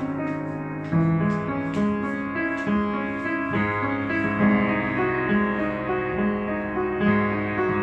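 Yamaha upright piano being played: a slow passage of single notes over held bass notes.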